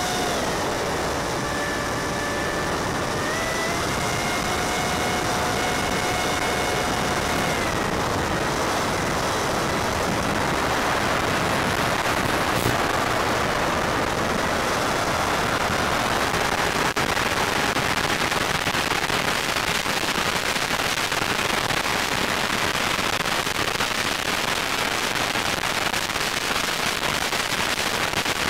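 Brushless electric motor of a Multiplex Easy Star RC plane whining, heard from on board through the video link's audio. Its pitch drops about a second in, rises again near four seconds and falls away around eight seconds. After that, a steady hiss with crackling static fills the rest.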